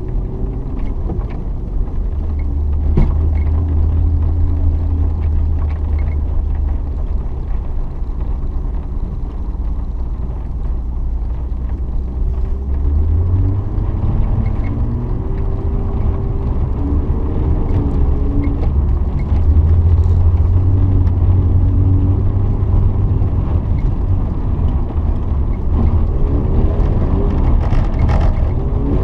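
BMW E36 320i's 2.0-litre straight-six heard from inside the cabin, running under load with the revs rising and falling as the car slides on ice. The engine note steps up about halfway through and again a few seconds later, getting louder.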